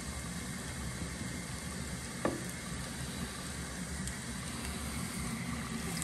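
Hot oil sizzling steadily as bhatura dough deep-fries, with a single short knock about two seconds in.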